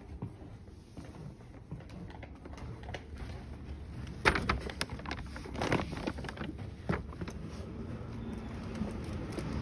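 Glass shop door with long pull handles knocking and rattling in its frame as it is pushed the wrong way: a sharp knock about four seconds in, then two more clunks, before it is pulled open. Street traffic noise grows louder near the end as the door opens.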